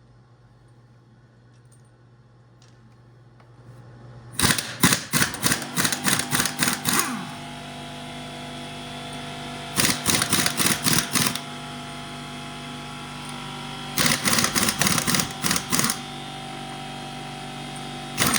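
Pneumatic impact wrench (air gun) hammering in four bursts of rapid rattling strokes, each lasting about one to three seconds, the first starting about four seconds in. A steady machine hum runs underneath.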